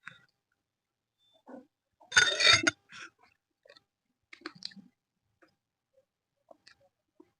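A single loud burp a little after two seconds in, with faint mouth clicks and smacks of eating before and after it.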